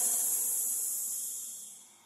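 A long, breathy hiss, a creepy horror sound effect, that fades away near the end.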